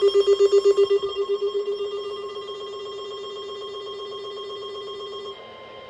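Electronic emergency alert tone, a rapid pulsing warble that is loud at first and fades over about two seconds. It then holds softly and drops in level again near the end.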